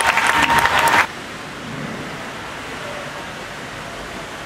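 Spectators applauding a dive, cutting off abruptly about a second in, followed by the steady hiss of an indoor pool hall's background noise.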